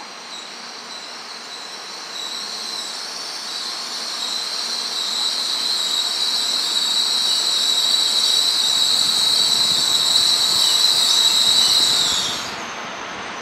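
Shinkansen train at the station platform: a steady high-pitched squeal of several tones over a rumble, growing louder for most of the stretch, then cutting off sharply near the end.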